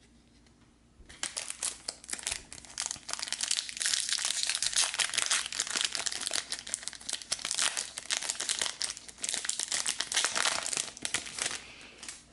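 Shiny foil wrapper of a Garbage Pail Kids Chrome Series 4 trading-card pack being torn open and crinkled by hand, a dense crackling that starts about a second in and dies away near the end.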